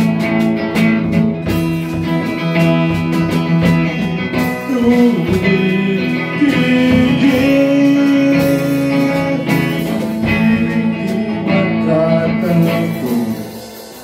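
Small rock band playing live: electric guitar chords over drums and cymbals, with a male voice singing from about four seconds in. The music dies down near the end.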